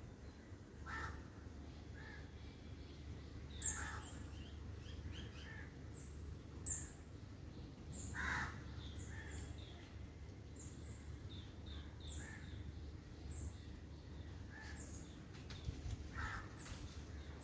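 Birds calling: scattered short high chirps and a few louder, harsher calls, the strongest near 4, 8 and 16 seconds in, over a faint steady low hum.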